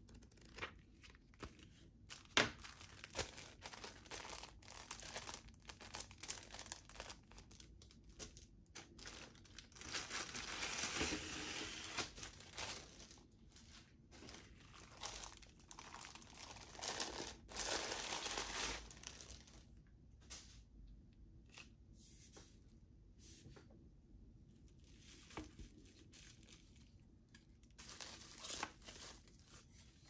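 A few pages of a paper manual flip at the start. Then a clear plastic bag and a bubble-wrap sleeve crinkle and rustle in bursts as they are handled and pulled off a metal desk lamp's base and arm, loudest about ten and seventeen seconds in.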